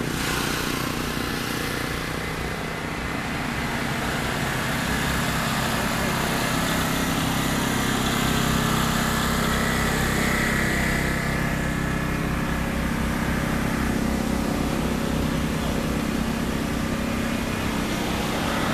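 An engine running with a steady low hum, a little louder around the middle.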